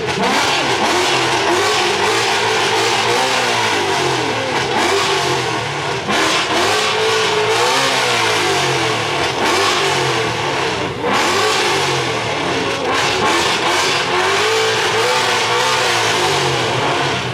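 Car engine revving hard, its pitch climbing and falling back again and again, over a loud steady hiss.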